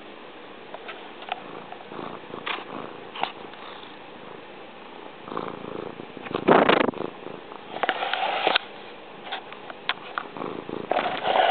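A pet sneezing in a fit: a loud sneeze about six and a half seconds in, then two more, near eight and near eleven seconds, with small snuffles and clicks between.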